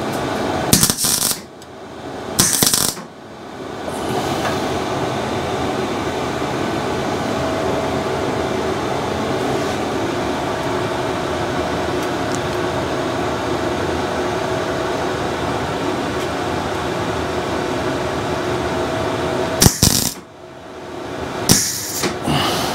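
MIG welder tack-welding steel brackets onto a motorcycle subframe: a few short bursts of arc crackle in the first three seconds and again near the end. In between, a steady workshop hum runs.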